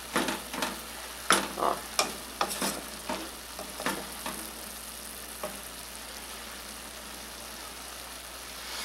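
Ground beef sizzling in a metal pot while a wooden spoon stirs it, scraping and knocking against the pot every half second or so. After about five seconds the strokes stop and only the steady sizzle goes on.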